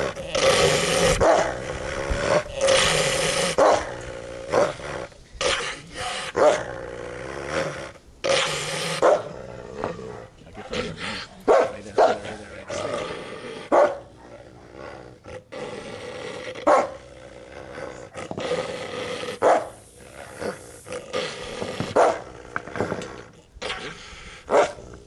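Wolf hybrid growling and snarling with teeth bared: a continuous low growl broken by short, loud snarling outbursts every second or two.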